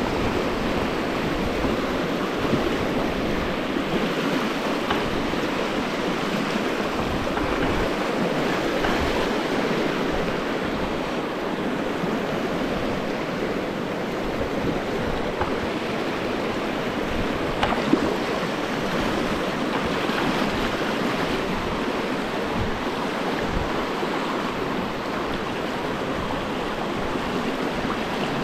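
Shallow river rapids rushing steadily over rocks, with one brief knock about two-thirds of the way through.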